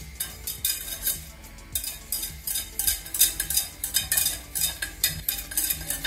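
Wire balloon whisk beating flour into melted butter in a stainless steel saucepan to make a roux: the wires scrape and tick against the pan in a steady rhythm, about two or three strokes a second.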